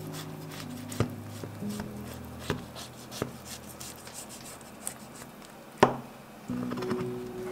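Kitchen knife cutting through a baked cheese-topped chicken dish, the blade knocking sharply on a bamboo cutting board a few times, loudest about six seconds in. Soft background music plays at the start and comes back near the end.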